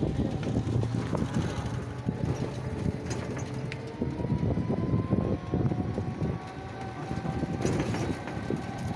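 Ride inside an open e-rickshaw: the metal frame rattles over the paving, with road and wind noise and a faint whine through the middle.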